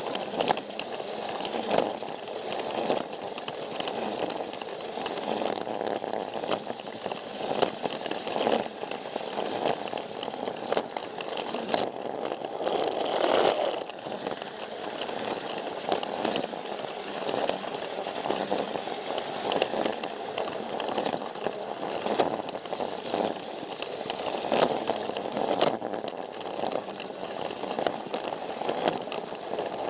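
Plarail toy train running: the battery-powered motor and plastic gearbox give a steady whirring rattle, with frequent sharp clicks as the wheels cross the track joints.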